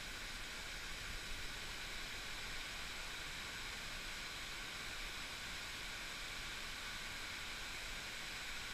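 Steady rushing hiss of waterfalls pouring into a rock pool.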